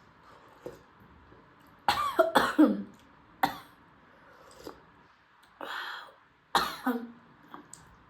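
A woman coughing in two short bouts, several coughs about two seconds in and another near the end, with a breathy intake of air between them.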